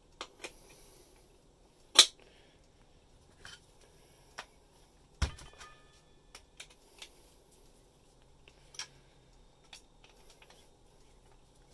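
Metal clicks and clinks from the cutter head and fittings of a Panasonic universal hole saw being handled and changed over: a loud click about two seconds in, a knock about five seconds in with a short metallic ring after it, and quieter clicks scattered between.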